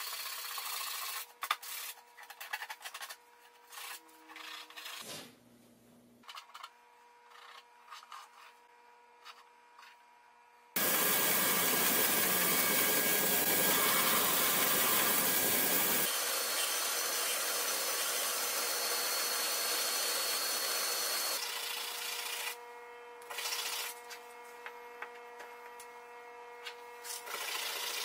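Hand sanding on the edge of a laminated plywood panel: short, scattered rubbing strokes. About eleven seconds in, a band saw cuts a small plywood piece, a loud steady run of noise for about five seconds. A quieter steady machine noise follows, and light rubbing strokes return near the end.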